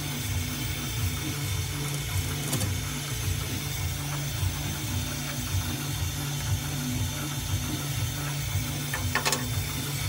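Roland MDX-40 desktop CNC mill with its rotary fourth axis, spindle running and a small end mill cutting a jeweler's wax ring blank in one deep pass: a steady mechanical hum with low pulsing under it. Two brief clicks, about two and a half seconds in and near the end.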